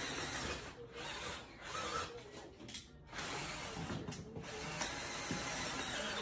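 Ratchet wrench clicking in repeated strokes as bolts are tightened while assembling a dining chair.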